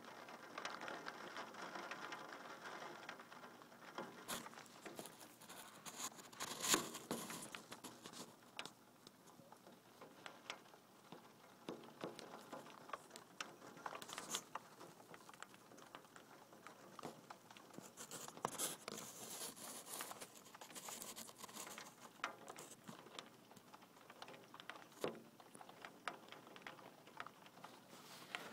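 Rain pattering: a soft steady hiss with many irregular drop ticks, heavier in two stretches, about a quarter of the way in and again past the middle.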